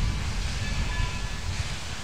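Wind buffeting the microphone in uneven gusts of low rumble, over a steady hiss.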